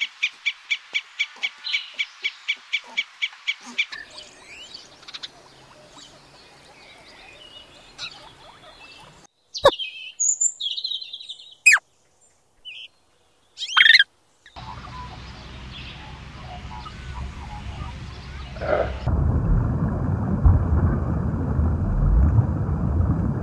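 A chipmunk gives rapid, evenly spaced high chip calls, about four a second, for the first few seconds. After a quiet stretch, ground squirrels give a few sharp high whistles and squeaks, separated by silences. Through the last third, an underwater rush of water noise takes over, growing much louder near the end.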